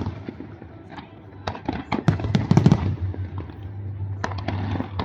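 A large aerial fireworks display: shells bursting in rapid volleys of sharp bangs, with a dense cluster about halfway through and another near the end, over a steady low hum.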